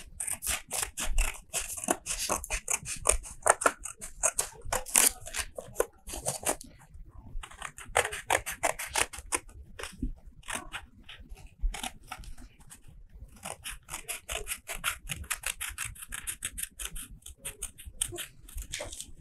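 Scissors snipping through a sheet of card in quick, repeated cuts as a shape is cut out, with two brief pauses along the way.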